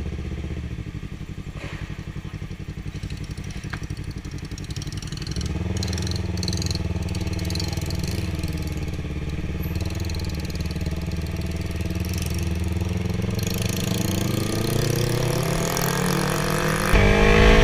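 Yamaha R3 parallel-twin engine running as the motorcycle is ridden. The engine note is steady and shifts gently in pitch, gets louder about five seconds in, and jumps louder again as it speeds up near the end.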